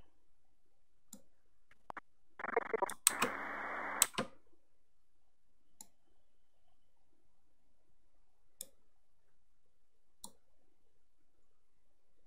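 About two seconds of static-filled, muffled recording played back, starting about two and a half seconds in, with sharp clicks where it starts and stops. Faint single clicks come through now and then in the otherwise quiet stretches.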